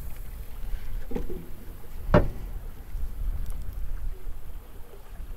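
Handling noise in a kayak: knocks of gear against the hull, with one sharp knock about two seconds in, over a low rumble.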